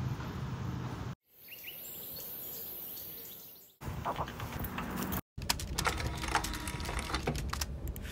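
Several short clips of everyday ambient sound cut together, each starting and stopping abruptly: steady background noise, then a stretch of hiss that fades in and out with a couple of short bird chirps, then runs of sharp clicks and knocks.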